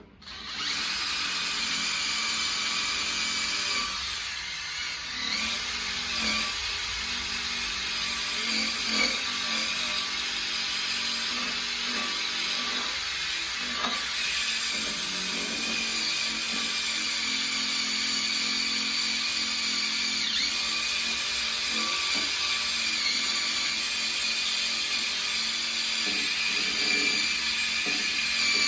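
A small high-speed power tool with a grinding bit running steadily against the rusty steel of a plow, starting about half a second in with a held high whine.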